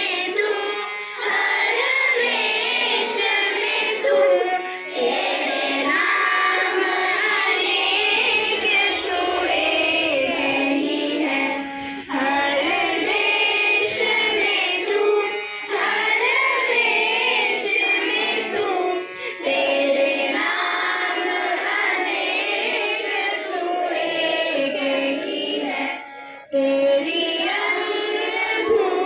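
A school music band of children singing a song together with musical accompaniment, the sung melody wavering continuously, with a short pause about 26 seconds in.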